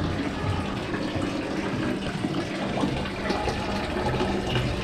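Steady rush of running water from an indoor water feature.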